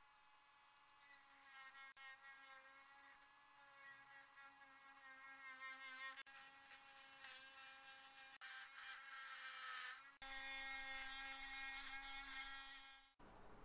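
Small electric motor, such as a handheld power tool's, running steadily with a faint, high buzzing whine. It breaks off briefly about ten seconds in, resumes, then stops shortly before the end.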